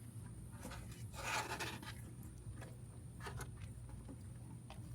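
Faint rubbing and scraping from handling, with a few light clicks, over a steady low hum.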